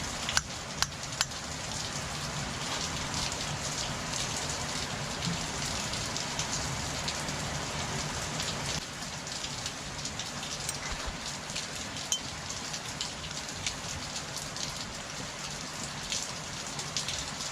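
Steady rain-like hiss, with scattered sharp ticks.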